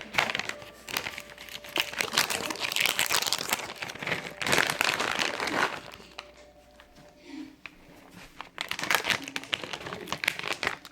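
Crinkling and crumpling, something crinkly being scrunched by hand in two spells, with a quieter stretch of about two seconds just past the middle.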